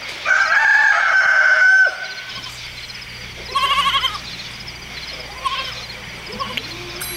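Animal-like calls: a high call held for about a second and a half, then about two seconds later a short quavering call, over faint, evenly repeated chirping.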